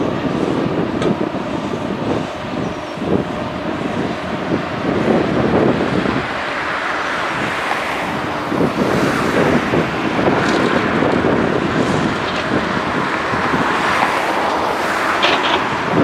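Diesel engines of a Kobelco hydraulic excavator and a Mack dump truck running steadily, the excavator working as it digs fill and swings its loaded bucket over the truck bed.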